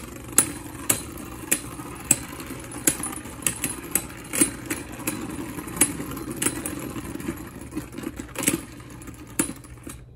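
Two Beyblade Burst tops spinning against each other in a plastic stadium. A steady whir of their tips on the floor is broken by sharp clacks as they collide, about one or two a second. The whir dies away near the end as the tops stop.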